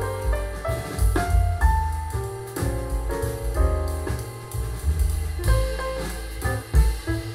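Instrumental jazz with piano, bass and drum kit, played through a pair of Audiolab Symbol two-way tower loudspeakers and picked up by a microphone in the room.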